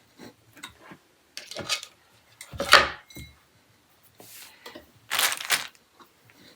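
Clattering and clinking of small hard pieces being handled during flat-pack rack assembly, in several separate bursts, the loudest about three seconds in and another near the end.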